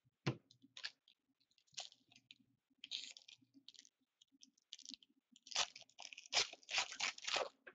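Foil wrapper of a hockey card pack crinkling and tearing as it is opened by hand, in short bursts, the longest and loudest near the end. A few sharp taps near the start.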